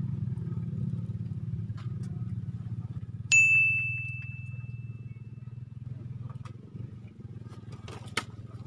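A steady low hum throughout. About three seconds in, a single bright metallic ding rings out and fades over about two seconds. A short sharp click comes near the end.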